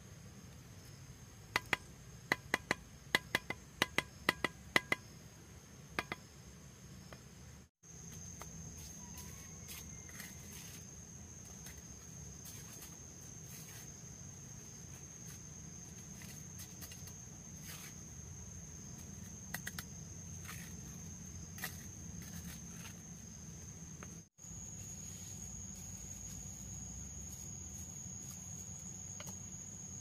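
A steady, high-pitched drone of insects, with a series of sharp, ringing taps in the first few seconds as concrete blocks are set in mortar, and a few fainter taps later.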